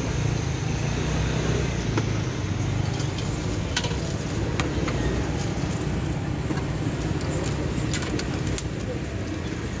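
Busy street-food stall ambience beside a roadside: a steady low rumble of traffic and the stall, with a few sharp clicks and clinks scattered through.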